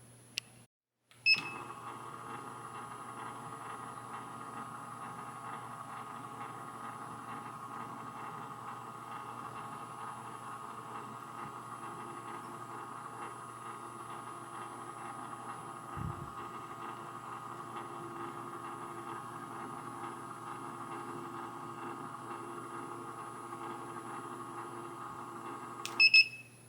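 A steady, unchanging hum made of several fixed tones, opened and closed by a short beep about a second in and near the end.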